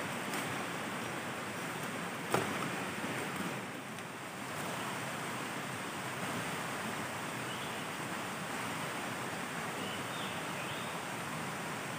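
River water rushing over rocks, a steady hiss of flowing water. A single sharp knock cuts through it about two seconds in.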